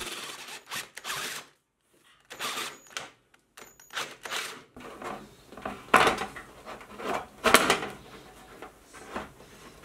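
Cordless drill with a step bit cutting holes through a thin folded sheet-metal cabinet panel, in short irregular bursts with brief pauses between.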